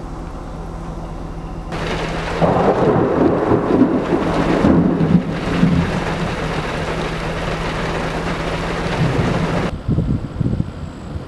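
Thunder from an overhead thunderstorm, a long low rumble starting about two seconds in and fading after a few seconds, over a steady rain-like hiss. The sound cuts off abruptly near the end.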